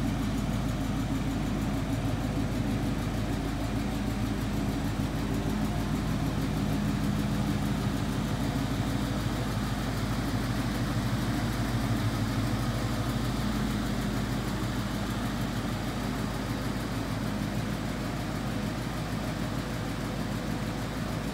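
1979 Ford Bronco's engine idling steadily.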